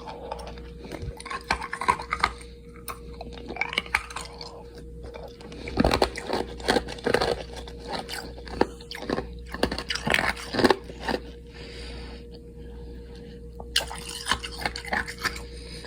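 Hard ice cubes being chewed, with irregular crunches and cracks of ice breaking between the teeth, loudest around the middle.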